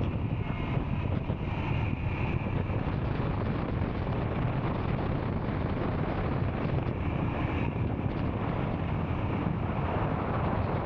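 Royal Enfield Scram 440's single-cylinder engine running steadily while riding, mixed with wind rushing over the microphone.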